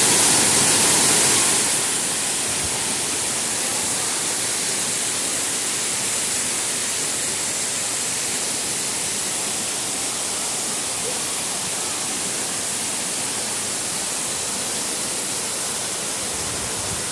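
Waterfall: a steady rush of falling water, a little louder for the first second or two.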